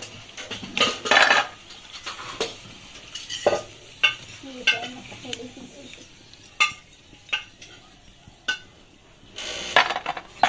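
Perforated steel skimmer clinking and scraping against an iron kadai as fried pakoras are scooped out of hot oil, with the oil sizzling. Sharp metal clinks come every second or so, with longer scraping stretches about a second in and near the end.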